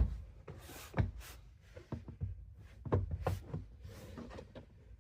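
Hands working on a car's interior seatbelt hardware and plastic trim: a run of light knocks and clicks with a brief rustle about a second in.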